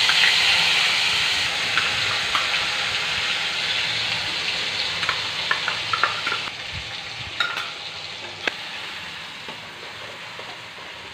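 Onion paste sizzling in hot oil in a metal pan. The sizzle is loudest as the paste goes in and fades gradually, with a few light clicks as it is stirred.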